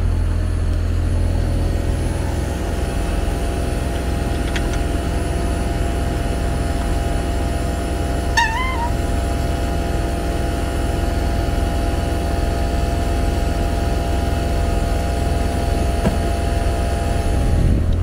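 Trane XV variable-speed air conditioner's outdoor unit running: a steady low hum from the compressor and condenser fan. A brief wavering chirp sounds once, about eight seconds in.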